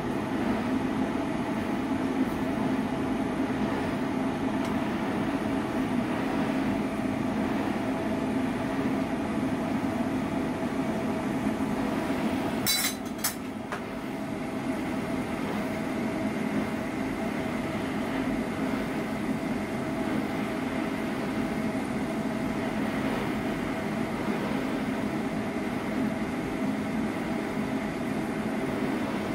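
Steady kitchen hum and rumble while broccoli simmers in a little water in a stainless steel pan on a gas hob. A short clatter comes about 13 seconds in.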